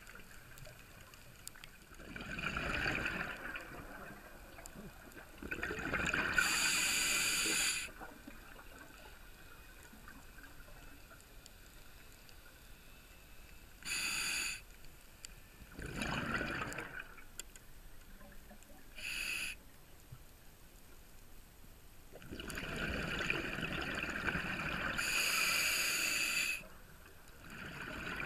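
Scuba diver breathing through a regulator: hissing inhalations alternating with rushes of exhaled bubbles, several breaths spaced a few seconds apart with quiet gaps between.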